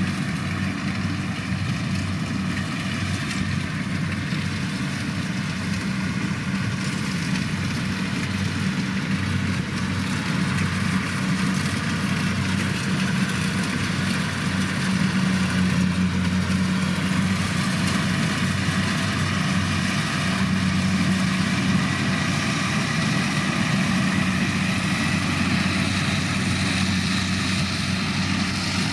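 Kubota DC105 combine harvester's diesel engine running steadily, with a constant low hum under a wash of machinery noise.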